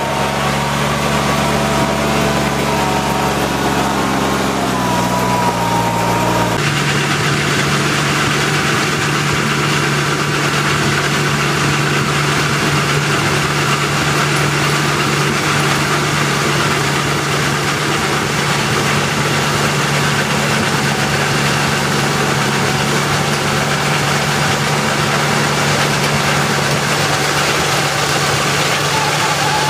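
Feucht OB Future II fallen-fruit harvester running steadily as it sweeps up fallen apples: a low, even engine hum with machinery noise over it. The sound changes abruptly about six seconds in.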